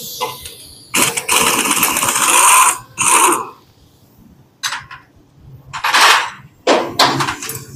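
Pneumatic impact wrench running in bursts, undoing a motorcycle's exhaust silencer bolts: one long burst about a second in, then four short ones.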